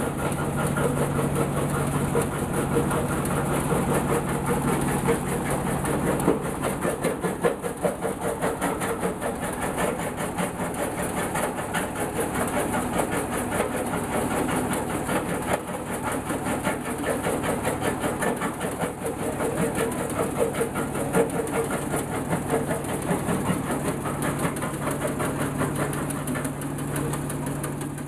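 Small jaw crusher running and crushing stone: a steady low hum from its drive under a dense, continuous rattle and clatter of rock being broken and falling through the jaws.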